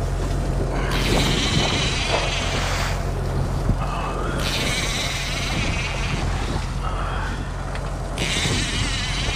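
A steady low engine hum, with three bursts of raspy buzzing of one to two seconds each, typical of a fishing reel's drag giving line to a hooked fish.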